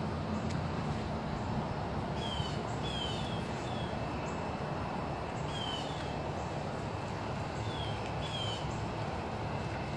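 Birds calling with short, falling chirps, one or two at a time, every second or few seconds, over a steady outdoor background noise.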